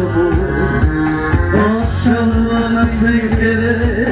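Electronic keyboard music: a held, organ-like melody over a steady drum-machine beat, with a cymbal ticking about four times a second.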